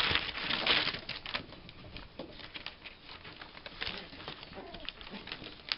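Newspaper rustling and crinkling under a Schipperke mother and her puppy as they scuffle over a chew stick, with quick scratches and clicks of paws and claws on the paper. It is densest and loudest in the first second, then thins to scattered crackles.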